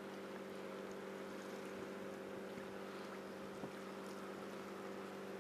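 Faint steady low hum over a light hiss, with one small tick about three and a half seconds in.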